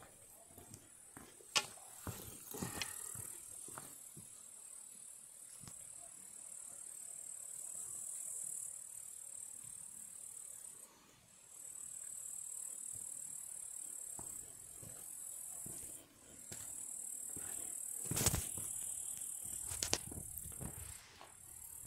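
Footsteps and scattered knocks on a rocky mountain path, probably boots on stone and trekking poles, with the loudest knock about 18 seconds in. A steady high hiss runs underneath, dipping briefly twice.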